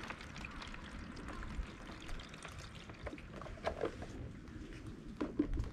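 Water poured from a plastic jug into a cut-down plastic drinks bottle holding cut branches, trickling steadily, with a couple of brief gurgles in the second half.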